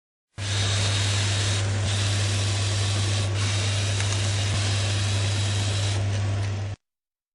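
A steady low hum with an even hiss over it, starting suddenly and cutting off sharply after about six seconds.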